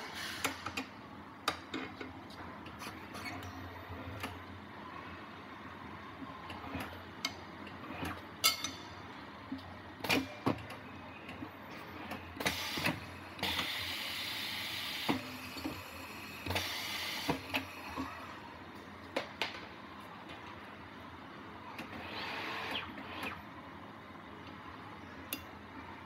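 A tire being worked off a 1997 Acura NSX front wheel on a tire changer: scattered knocks and clicks of rubber, tools and metal against the rim, with two short stretches of hiss about halfway through.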